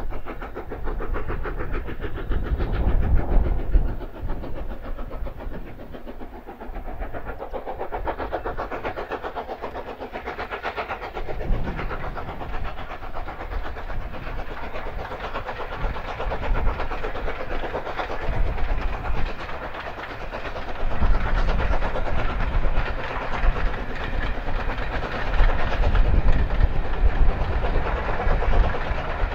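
Metropolitan Railway E Class No. 1, an 0-4-4 steam tank locomotive, working a train of coaches past: a rapid, steady beat of exhaust with the rumble and clatter of the train on the rails, growing louder toward the end.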